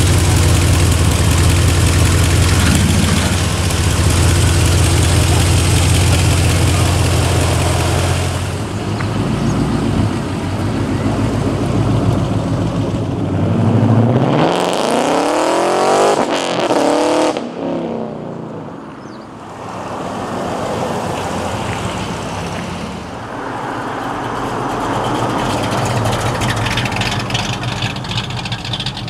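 Muscle-car V8 engines rumbling close by. About halfway through, one car accelerates hard with a quickly rising engine note that then fades away, and more engine sound follows near the end.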